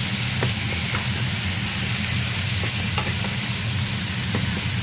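Food sizzling and frying in a pan, a steady hiss, with a few light clicks of a utensil as it is stirred. A steady low hum runs underneath.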